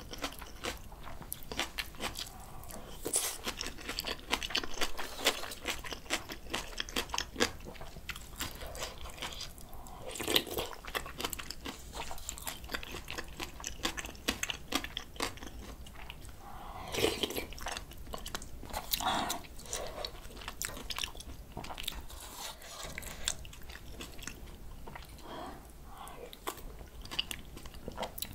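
Close-miked chewing and biting of bibimbap dressed with crunchy raw radish salad and spring-cabbage kimchi, along with spoonfuls of soybean-paste stew: a steady run of wet crunches and mouth clicks, with a few louder bites.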